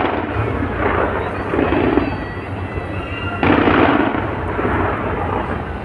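Fireworks going off in a dense barrage, the booms and crackles running together, with a heavier burst about three and a half seconds in.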